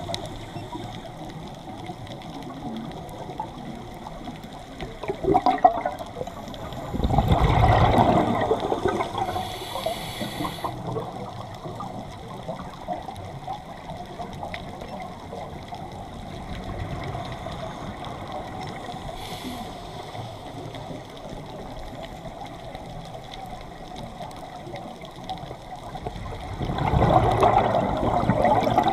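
Scuba diver breathing through a regulator underwater: a steady low bubbling, with two loud rushes of exhaled bubbles, one about seven seconds in and one near the end, and a brief hiss of inhalation in between.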